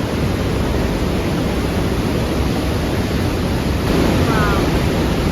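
Fast-flowing mountain river water rushing steadily through a narrow rock gorge.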